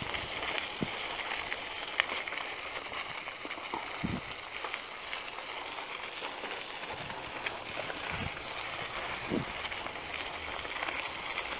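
Caloi XRT bicycle's tyres rolling over a loose dirt-and-gravel road: a steady gravelly hiss with scattered ticks, and a few dull knocks from bumps.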